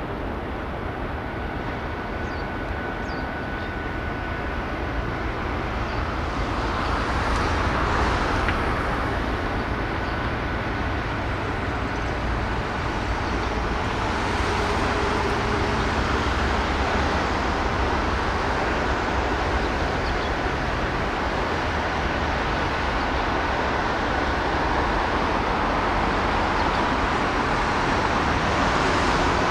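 Steady rush of road traffic that swells and fades slowly as vehicles pass. A faint thin steady tone sits above it in the first half.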